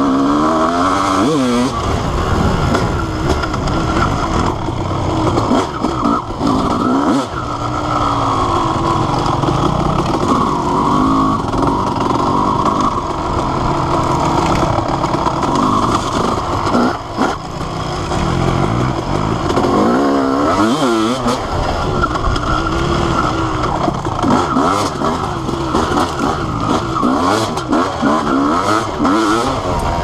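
Honda CR250R's single-cylinder two-stroke engine heard from on the bike as it is ridden hard, its pitch climbing and dropping again and again as the rider opens and closes the throttle through the gears.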